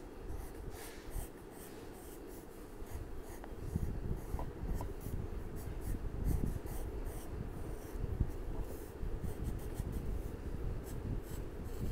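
Coloured pencil scratching across paper in many short, quick strokes, tracing an outline.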